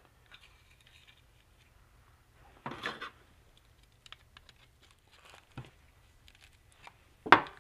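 Small metal clicks and handling clatter as a band-type piston ring compressor is clamped around an oiled piston and tightened with its key, with a louder clatter about three seconds in and a sharp knock near the end.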